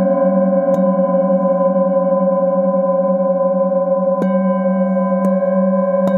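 Several metal singing bowls ringing together in steady, overlapping tones, the lowest with a slow wavering beat. A mallet strikes a bowl once about a second in and three more times in the last two seconds, each strike renewing the ringing.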